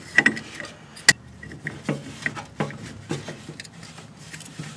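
Scattered metallic clicks and clinks of Vise-Grip locking pliers being set on a lawn tractor's variable speed pulley to hold it, with one sharp clank about a second in.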